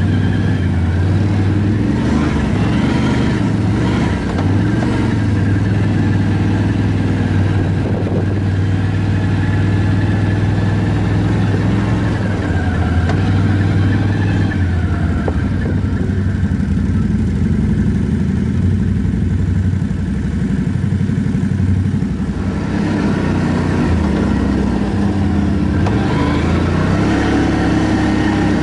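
ATV engine running while riding, a steady low hum that rises and falls a little in pitch with the throttle.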